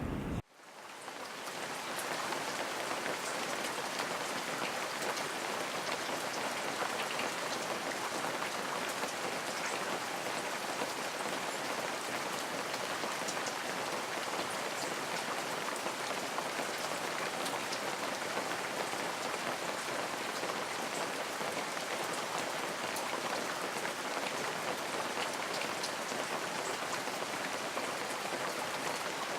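Steady rain: an even hiss flecked with scattered drop ticks. It swells in just after an abrupt cut about half a second in.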